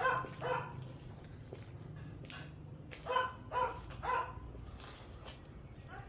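A dog barking: two short barks at the start, then three more in quick succession about three to four seconds in.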